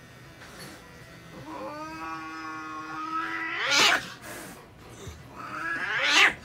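Japanese domestic cat yowling while held down for paw treatment: a long, low, steady yowl that climbs into a screech and breaks off, then a second, shorter yowl that rises sharply and cuts off. The cries are the cat's protest at being restrained and handled.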